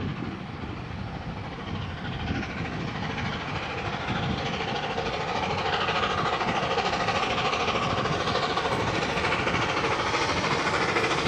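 NSW 59 class steam locomotive 5917 hauling a passenger train as it approaches. The sound of the engine working and the train running grows louder over the first half and then holds steady.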